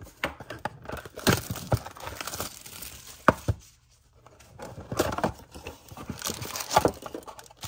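A sealed 2022 Bowman Chrome HTA baseball card box being torn open by hand: packaging tearing and crinkling in irregular bursts, with a few sharp snaps and a short pause a little before halfway.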